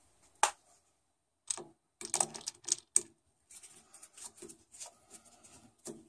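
Sharp plastic clicks and taps as the wiring-box cover on a Taco 007e circulator pump is fitted and screwed down with a screwdriver: five distinct clicks in the first three seconds, then a run of faint small ticks.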